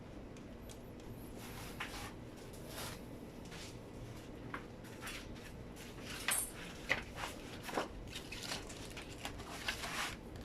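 Irregular metallic clinks and short scrapes as camshaft bearing caps and their bolts are handled and set onto an aluminium cylinder head, busiest in the second half.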